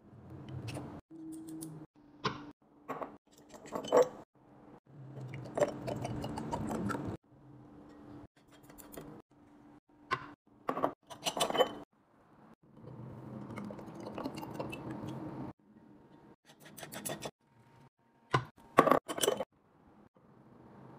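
Glass mason jars and their lids being handled, with sharp clinks, taps and clicks of glass and metal, in a string of short separate clips, each with its own faint background hiss.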